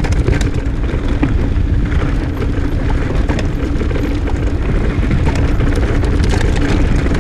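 Wind buffeting the microphone of a camera on a mountain bike in motion, with the bike clattering and ticking over rough ground.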